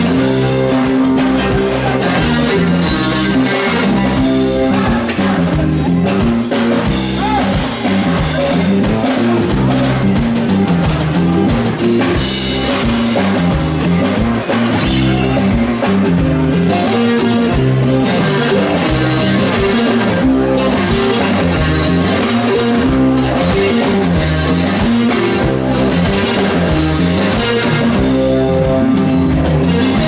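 Live electric band playing: several electric guitars over a repeating bass line and a drum kit, running steadily throughout.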